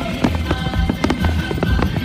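Fireworks going off in quick succession, many sharp bangs and crackles a second, over music playing.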